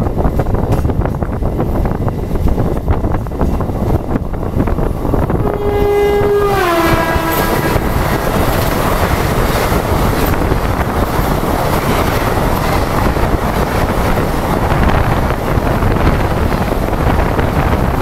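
Wheel rumble and wind at the open door of a fast-running passenger coach. About six seconds in, a train horn sounds for a second or so and drops in pitch as the oncoming MEMU meets the coach, followed by the rushing clatter of the MEMU coaches passing close alongside.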